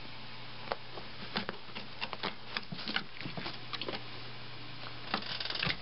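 A cat pawing and scrabbling at the bottom of a wooden dresser and the carpet, its claws making scattered light scratches and taps that come thicker near the end.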